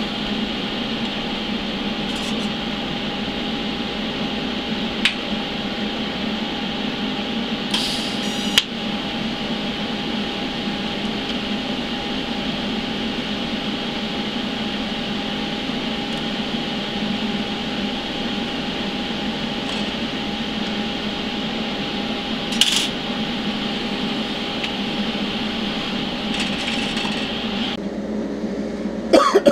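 TIG welding arc burning steadily on thin-walled steel tube: an even buzzing hiss with a faint steady hum, broken only by a few small clicks. It stops a second or so before the end.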